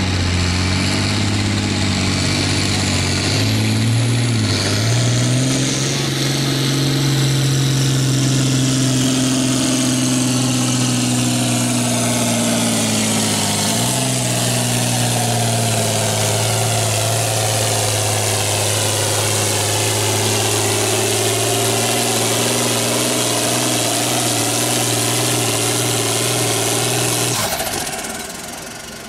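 Farm tractor engine running hard under load while pulling a weighted sled. Its pitch climbs about five seconds in, holds steady with a short dip midway, and the sound drops away near the end.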